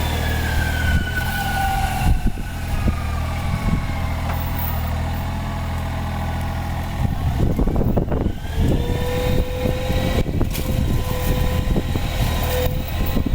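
Excavator-mounted hydraulic mulcher running over the steady drone of the excavator's engine: the rotor's whine falls in pitch over the first several seconds, then about seven seconds in it rises again and dense crackling sets in as the rotor chews into material.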